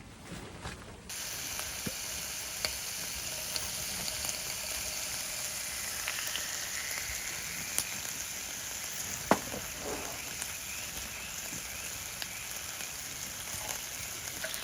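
Meat frying in a pan: a steady sizzle that starts suddenly about a second in, with small crackling pops and one sharper click a little past the middle.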